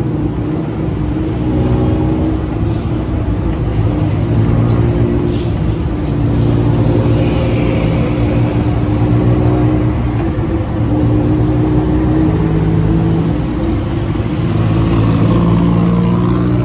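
Tuk-tuk engine running under way, its pitch stepping up and down as it speeds up and eases off, over steady wind and road noise.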